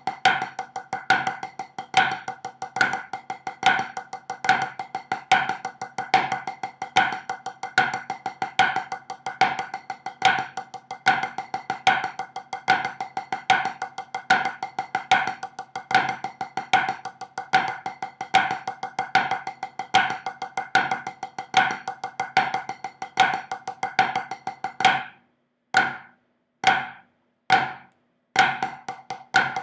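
Two drumsticks on a drum practice pad playing a flammed five-stroke paradiddle exercise: a fast, even stream of strokes with louder accents at regular intervals. About 25 seconds in it breaks into a few single, evenly spaced strokes, then the fast pattern resumes.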